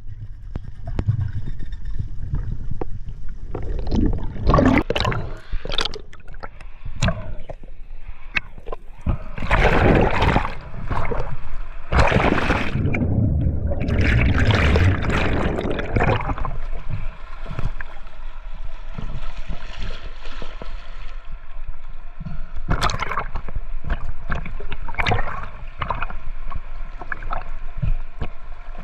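Water sloshing and gurgling in irregular surges.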